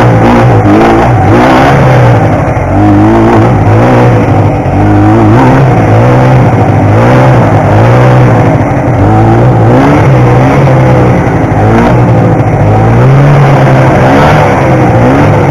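1972 Ski-Doo TNT 440 snowmobile's two-stroke twin engine running under way, its pitch rising and falling every second or two as the throttle is worked.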